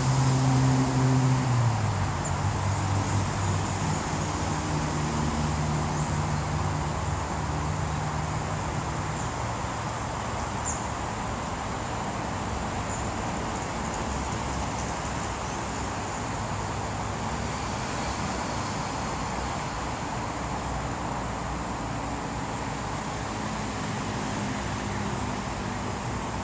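Steady road-traffic noise, with a vehicle engine's hum loudest at the start; it drops in pitch about two seconds in and fades out after several seconds. A fainter engine hum comes up again near the end.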